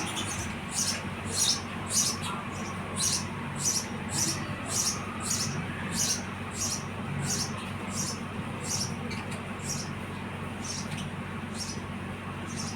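House sparrows chirping: a steady run of short, high chirps at about two a second, spaced more widely near the end.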